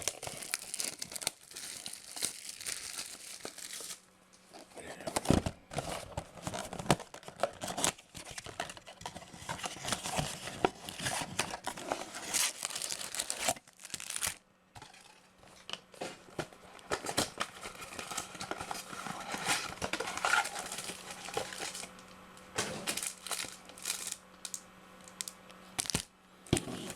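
Plastic shrink-wrap being torn and crumpled off two boxes of trading cards: irregular crinkling and tearing with small sharp clicks, easing off briefly twice.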